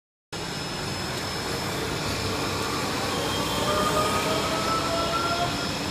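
Steady vehicle noise, with a faint tone slowly rising in pitch through the middle.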